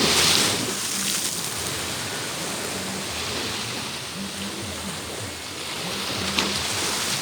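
Sea waves washing onto a beach: a continuous rush of surf that swells and eases every few seconds, with some wind on the microphone.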